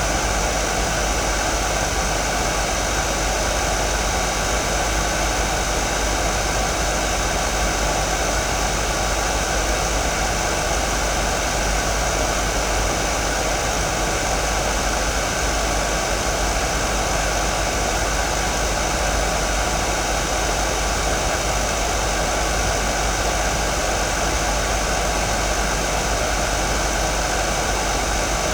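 Hair dryer running steadily on one setting: an even, unchanging rush of blown air and motor hum. It is picked up by a vintage 1980s Toshiba EM-420 electret condenser microphone.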